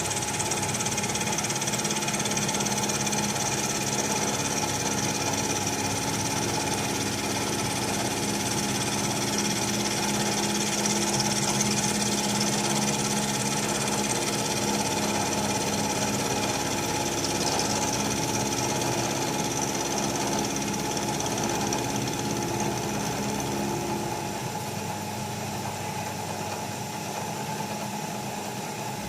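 Bridgeport Series 2 Interact 4 CNC milling machine running a milling pass, a steady hum of several tones under a high hiss. About 24 seconds in the hiss eases and one of the tones stops, leaving the machine running more quietly.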